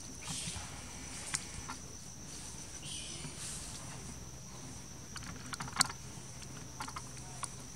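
A steady high-pitched insect drone, with scattered light clicks and snaps of dry twigs as a baby monkey climbs through them. The sharpest snap comes about six seconds in.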